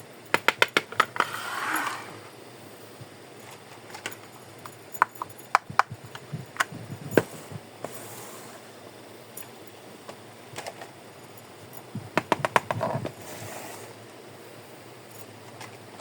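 Small plastic toy pieces being handled, clicking and tapping against each other: a quick run of clicks with some rustling at the start, scattered single taps in the middle, and another quick run of clicks with rustling near the end.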